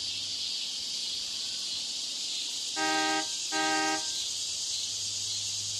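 A car horn honks twice, two short blasts of about half a second each near the middle, over a steady high-pitched hiss and a low hum of added background noise.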